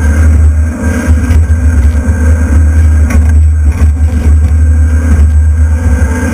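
Excavator's diesel engine running under load as its bucket pulls apart a wood-framed building, with a knock from falling debris about three seconds in.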